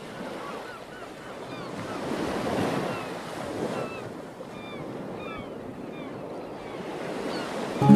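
Ocean surf washing onto a beach, one wave swelling up and falling away about two to three seconds in, with birds giving short chirping calls over it. Ukulele music comes in right at the end.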